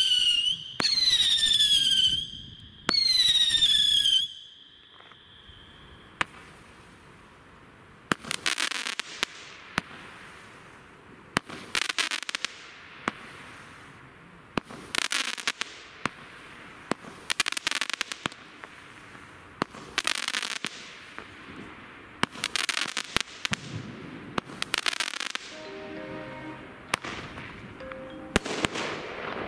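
Consumer fireworks: three whistles in a row, each falling in pitch, then a string of shots about every two to three seconds, each a rushing hiss with sharp cracks and pops.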